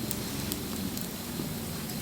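Wood fire burning: a steady low rush of flame with a few sharp crackles from the burning wood.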